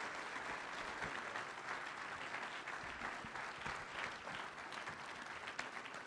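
Audience applauding, a steady, fairly soft clatter of many hands clapping.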